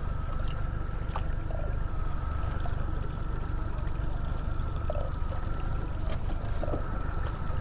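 Boat motor running steadily at low speed: a low rumble with a thin, steady whine above it, and a few faint clicks.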